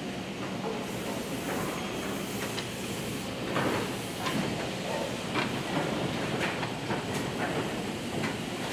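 Woodworking machinery running on a cabinet factory floor: a steady hissing hum broken by irregular sharp clacks and knocks, several of them in the middle of the stretch.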